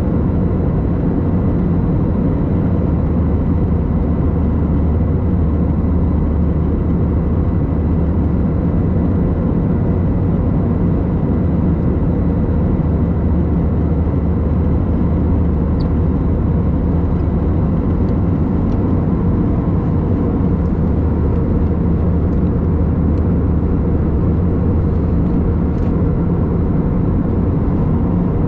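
Steady cabin drone of an Airbus A321 airliner, heard from a window seat by the wing: engine noise and rushing air at a constant level, with a faint steady whine above it.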